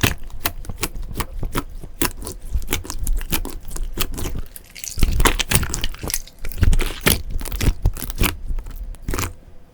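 Slime being squeezed and worked by hand, giving a dense run of small crackles and pops, with louder clusters about halfway and again a couple of seconds later, fading out near the end.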